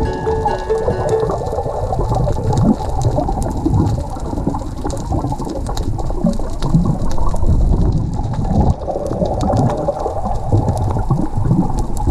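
Underwater sound picked up by a camera on a reef: the rush and surge of moving water, with many scattered sharp clicks and crackles.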